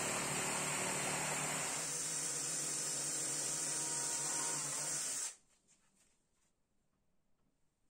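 Power tools cutting and boring into a wooden board: an electric jigsaw sawing, with the sound changing about two seconds in, and a cordless drill running. The noise stops abruptly about five seconds in, leaving near silence.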